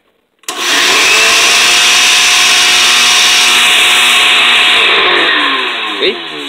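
Osterizer 10-speed blender motor switched on: it starts abruptly about half a second in, runs loud and steady with a whine for about four seconds, then winds down with falling pitch once switched off. A sharp click comes near the end as it coasts down.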